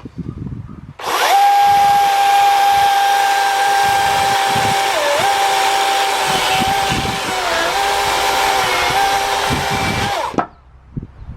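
DEWALT 60V cordless electric chainsaw starting about a second in and running with a steady high whine as it cuts through wood, its pitch dipping briefly three times, then stopping shortly before the end.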